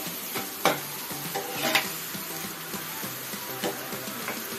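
Chopped onions sizzling in hot mustard oil in a nonstick frying pan while being stirred with a steel spoon, with two sharp scrapes of the spoon against the pan about a second apart near the start. The onions are being sautéed toward golden brown.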